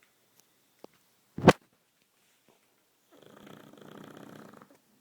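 A sleeping pet snoring: one long, rattling snore starts about three seconds in. A single sharp knock about a second and a half in is the loudest sound.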